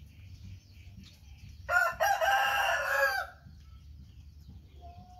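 A rooster crows once, a call about a second and a half long near the middle that is the loudest sound, over faint chirping and a low steady hum.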